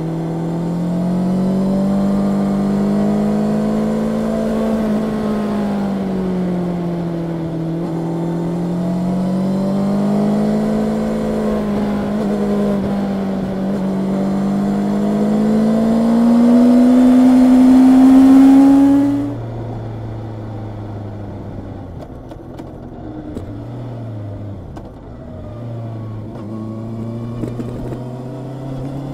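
Honda CB650R's inline-four engine running under throttle, the revs rising and falling, then climbing steadily to a peak about two-thirds of the way in. The throttle then shuts suddenly and the engine drops to a low, steady note, with a few brief dips near the end.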